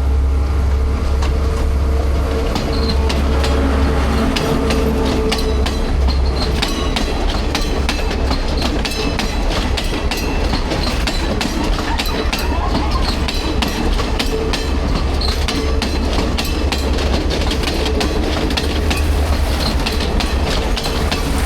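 Sri Lanka Railways' blue diesel passenger train passing close by: a steady low rumble with a continuous, irregular clickety-clack of wheels over the rail joints.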